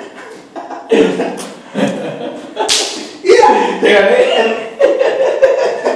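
Men's voices calling out without clear words, with a sharp slap about halfway through.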